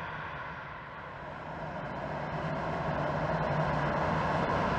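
Jet engines of a taxiing Boeing 787-9 airliner, Rolls-Royce Trent 1000s, running at low taxi power: a steady hum and rush that grows louder from about a second in.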